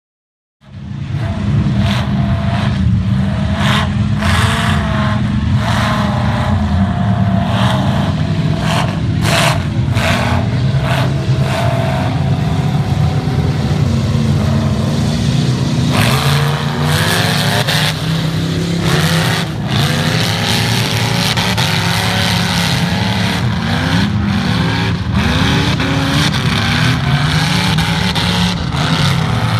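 Lifted mud truck's engine revving hard as it churns through a mud pit, the revs rising and falling again and again. Many sharp cracks are heard over the first dozen seconds.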